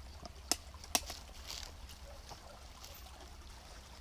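Two sharp clicks as a packed metal camping pot is handled, then faint scattered rustling and ticking as it is bagged. A stream trickles steadily underneath.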